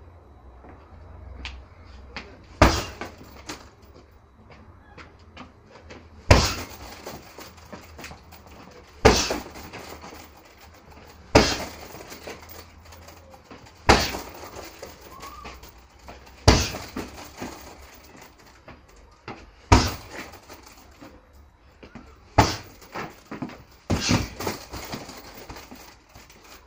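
Heavy punching bag struck hard by kicks and gloved punches, a loud slap-thud every two to three seconds, with a quicker run of hits near the end.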